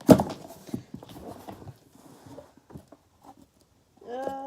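Packaging being handled while a box is unpacked: a loud knock, then scattered taps, clicks and rustling. It ends with a short hummed vocal sound about four seconds in.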